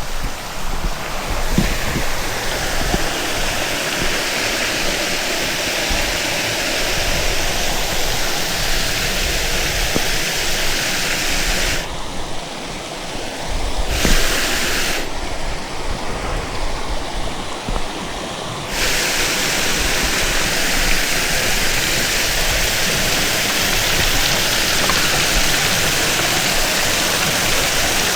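Steady, loud rush of flowing water, such as a stream or small weir. Its hiss dulls twice for a few seconds around the middle before returning.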